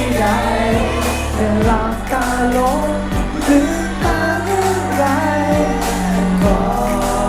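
Thai pop song, a singing voice carrying the melody over drums and a steady bass line.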